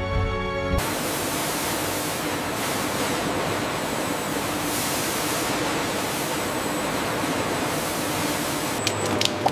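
Music stops about a second in and a steady hiss of water takes over, sprayed from overhead nozzles onto avocados on a washing conveyor. Near the end, a quick run of sharp clicks starts.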